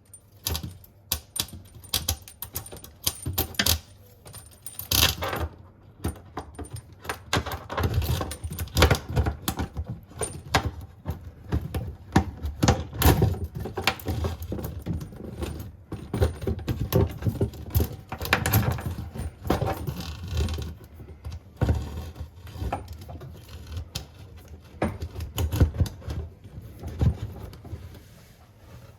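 Metal tools and fittings clinking and knocking as they are handled during a washbasin faucet replacement, with many irregular short clicks and clanks.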